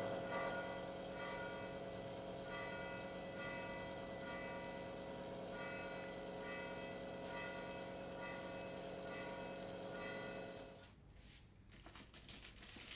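Bells chiming over a steady sustained tone, with strikes every second or so, stopping about eleven seconds in. A few light knocks and rustles follow.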